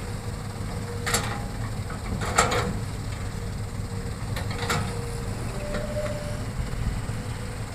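Hitachi hydraulic excavator's diesel engine running steadily under load while it digs and loads soil. Three sharp knocks from the bucket and its load come about one, two and a half, and four and a half seconds in, the middle one the loudest.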